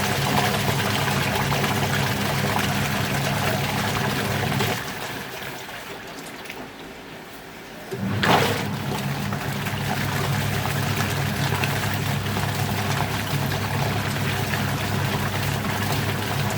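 Washing machine running with its motor humming and water swishing inside the drum; it drops away about five seconds in and starts again with a surge about three seconds later.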